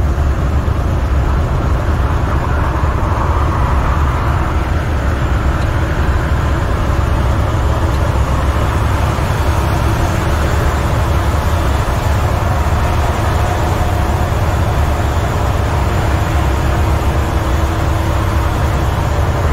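International semi truck's MaxxForce 13 diesel engine and tyres droning steadily inside the cab at highway speed.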